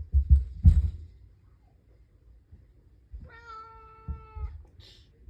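Heavy low thuds of children running on the floor above, heard through the ceiling, loudest in the first second. About three seconds in, a single high, steady cry lasting just over a second.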